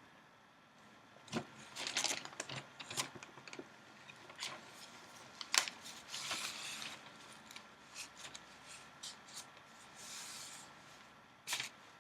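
Paper of a newspaper flier being handled and turned, with irregular short crackles and rustles, the sharpest about halfway through.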